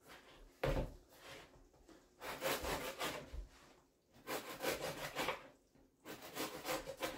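A knife sawing through a crusty loaf of bread on a cutting board, in three runs of quick back-and-forth strokes, with a single thump about a second in.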